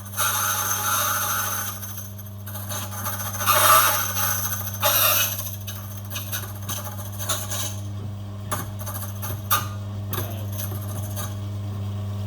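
Silca Speed key cutting machine's motor running with a steady hum while its cutter bites into a key blank in several loud, harsh bursts over the first five seconds, followed by a run of lighter clicks and taps. The replacement drive belt is holding well, driving the cutter under load.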